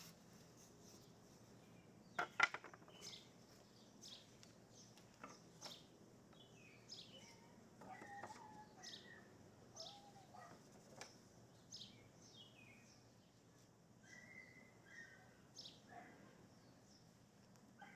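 Faint bird chirps, short and high, about one a second, with a few lower calls in between. A short clatter of knocks about two seconds in is the loudest sound.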